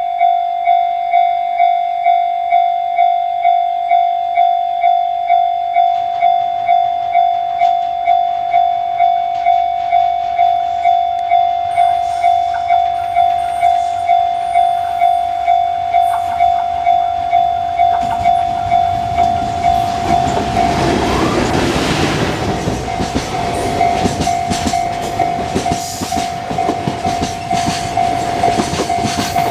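Level-crossing warning bell ringing in a steady, even rhythm of about one and a half strikes a second. About twenty seconds in, a freight train hauled by a JR Freight EF510 electric locomotive arrives and passes over the crossing with a loud rumble and wheel clatter on the rails, the bell still ringing.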